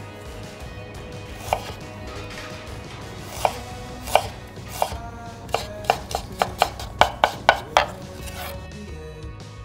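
Kitchen knife cutting fresh ginger on a wooden cutting board. A few separate slicing knocks come first, then a quicker run of about four cuts a second as the slices are cut into matchsticks, stopping shortly before the end.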